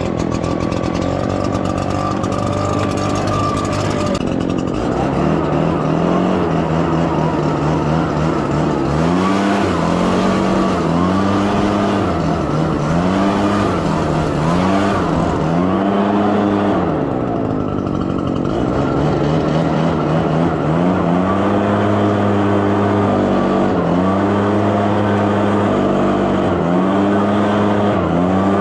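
Gas-powered leaf blower running loud, its engine pitch rising and falling over and over as the throttle is worked, about every two seconds after the first few seconds.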